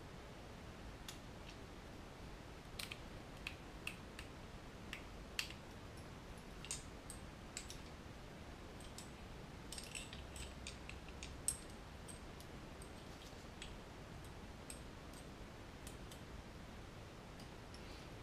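Faint, irregular clicks and taps of small plastic and metal parts as a Heljan O gauge Class 45 model locomotive bogie is handled and its wheel sets and axle bearings are fitted back into the frame. The clicks bunch in the middle, the sharpest a little past halfway.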